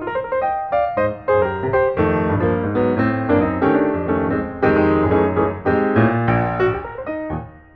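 Piano music: a busy keyboard piece with a bass line, notes struck in quick succession, with a brief dip in loudness near the end.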